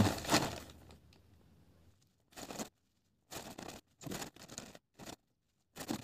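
A series of short rustling, scraping sounds, about six in a few seconds, like something being torn, crumpled or handled.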